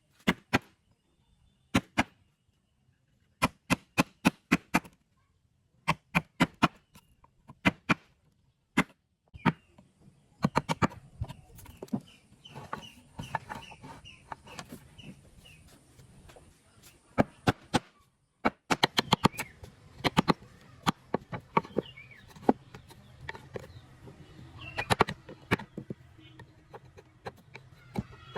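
Hand tool striking wood in quick runs of four or five sharp knocks with short pauses between, as in wood being chopped or chiseled by hand. Partway through, a low hum and busier background noise come in under the strikes.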